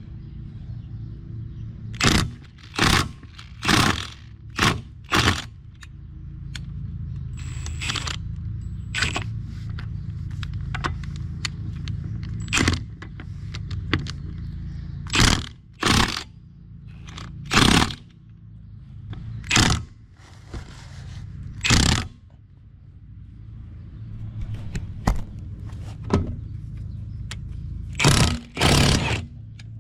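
Hand tools working on a tight fastener of a car's rear strut: short, sharp metallic scrapes and clanks, some single and some in quick pairs, at irregular intervals over a steady low hum.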